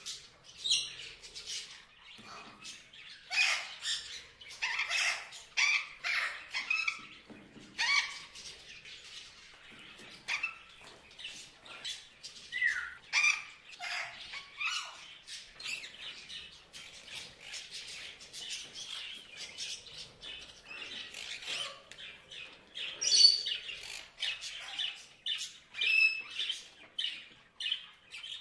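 Parrots chirping and squawking in a rapid, overlapping run of short, high calls, with one sharply louder call about 23 seconds in.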